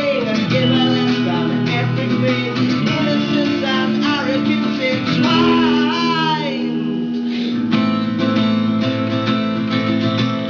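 Live band music led by strummed acoustic guitars, with a wavering, gliding melody line about halfway through.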